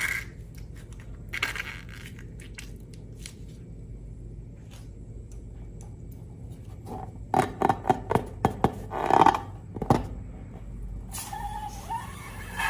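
Scraping and clicking handling sounds, with a run of louder clicks and crackles about seven to ten seconds in.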